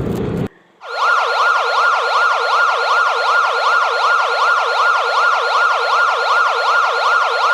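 Road noise cuts off about half a second in, and then an electronic yelp siren sweeps quickly up and down, about three times a second, loud and clean.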